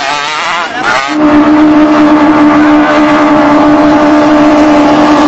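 Racing longtail drag-boat engine running at high revs. About a second in, the sound changes abruptly to a loud, steady, unwavering engine note.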